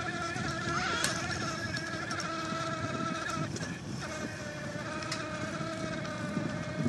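iZip electric bike's 24-volt power-assist motor running under way with a steady whine; the pitch shifts slightly about three and a half seconds in.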